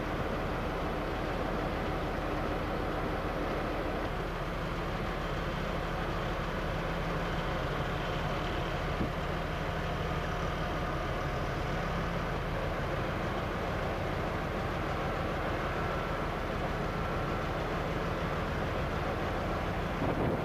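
ST44 (Soviet-built M62) diesel locomotive's two-stroke V12 engine running steadily.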